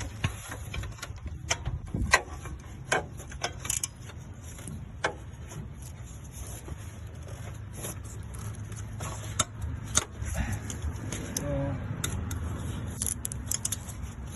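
Irregular metallic clinks and knocks of hand tools working on the alternator's mounting bolts, over a steady low hum.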